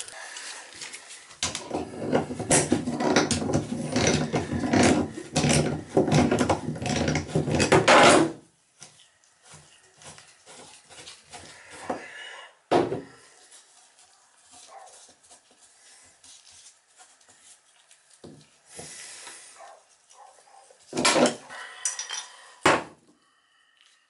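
Metal tub drain being unscrewed with a wrench on a drain-removal tool. About six seconds of loud scraping and rattling of metal on metal, then quieter rubbing and a few knocks and clatters of metal parts against the tub.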